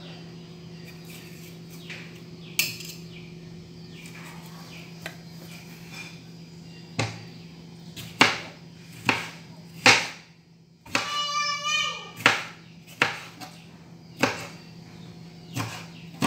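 Kitchen knife cutting tomatoes on a plastic cutting board: scattered sharp knocks of the blade striking the board, coming more often in the second half. A steady low hum runs underneath, and a brief high-pitched squeaky tone sounds a little past the middle.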